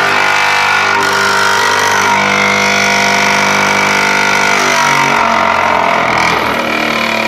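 Electric vibrating table of a Vee-Bee consistometer running with a loud, steady hum as it vibrates fresh concrete in the steel mold. This is the timed vibration stage, in which the slumped concrete remoulds to a flat surface; the time it takes is the VB degree.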